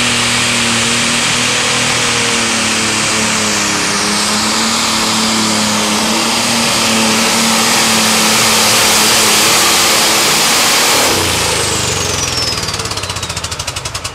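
Modified pulling tractor's engine running hard under load down the track, then about 11 s in it backs off and winds down with a falling whine and a rapid pulsing as it dies. It did not sound good at the end of the run, a sign of engine trouble.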